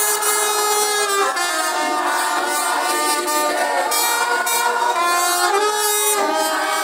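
A group of people singing together, many voices holding long notes.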